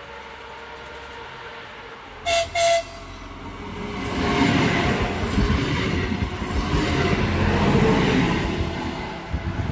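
PESA ATR 220 diesel regional train giving two short horn blasts about two seconds in, then passing close by, its engine and wheel noise swelling and staying loud until near the end.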